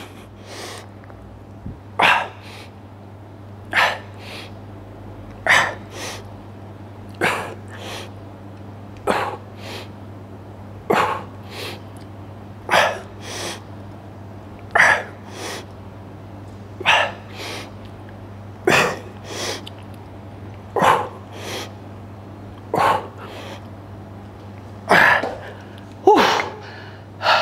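A man breathing out hard with each rep of a set of triceps dips: a sharp, forceful exhale and a quicker second breath about every two seconds, strained from effort. A steady low hum runs underneath.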